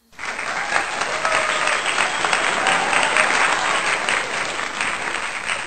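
Applause sound effect: a crowd clapping, coming in suddenly and continuing steadily.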